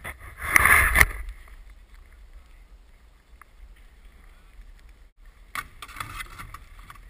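Skis sliding over packed snow with wind rushing on an action camera's microphone, starting with a short loud rush of noise. From about five and a half seconds in, scraping and clicking as skis slide onto and along a jib box.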